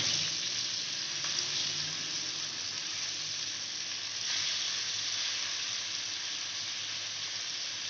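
Sardines shallow-frying in hot oil on a cast-iron tawa: a steady sizzle.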